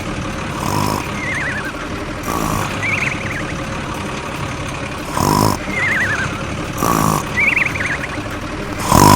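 Toy vehicle sounds: a steady motor hum with a short honk-like blast every second or two. Warbling whistle tones fall between the blasts.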